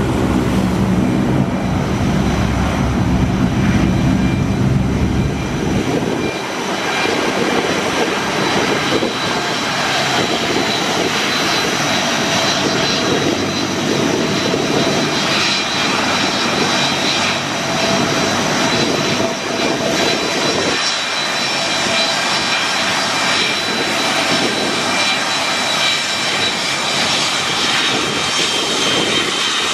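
C-130 Hercules' four Allison T56 turboprop engines running on the ground. For the first several seconds the propellers give a deep, steady drone. About six seconds in the low drone drops away, leaving a steady high turbine whine and hiss.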